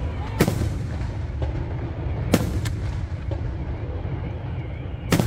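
Fireworks shells bursting overhead: three loud, sharp bangs about two seconds apart, with a few fainter pops between them, over a steady low rumble.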